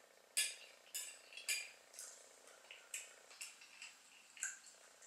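Metal knife and fork clicking and scraping against a plate while cutting up a rotisserie chicken: about eight sharp, short clinks at uneven intervals.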